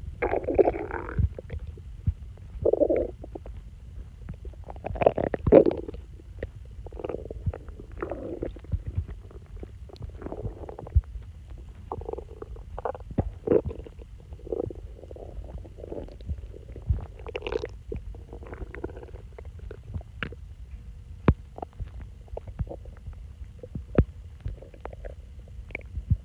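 A person's stomach growling and sloshing loudly: irregular gurgling rumbles that come and go, dotted with many short pops, loudest about five seconds in.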